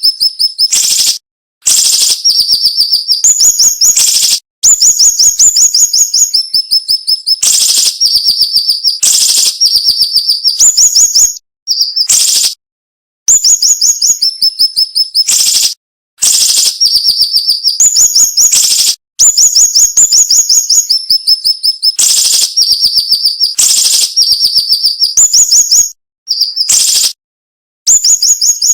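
Siri-siri bird singing: loud, sharp, high-pitched phrases of rapidly repeated notes, each phrase lasting a second or a few seconds. The phrases come one after another with short, abruptly silent breaks between them.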